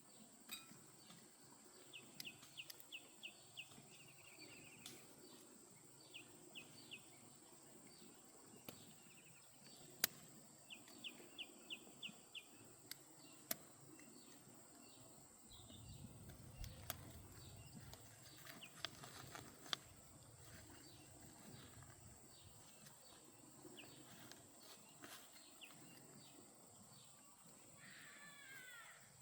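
Near silence with faint birds chirping in short rapid runs of five or six high notes, and scattered light clicks and taps.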